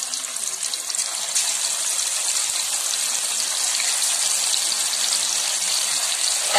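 Masala-coated carp steaks deep-frying in hot oil in a kadai: a steady, dense sizzle that gets louder about a second and a half in.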